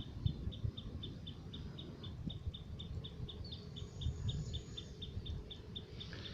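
A short high-pitched chirp repeating evenly, about four times a second, from a small animal in the rice paddy, over low irregular rumbling noise.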